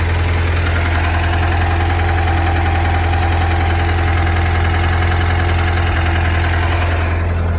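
Engine idling with a steady, rapid knock that the owner cannot place as rod knock or pushrod slap.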